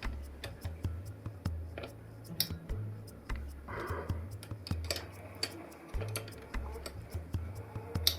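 Light clicks and taps of small metal and plastic PC parts being handled as a CPU cooler and its screws are set onto a motherboard, with a low hum that comes and goes.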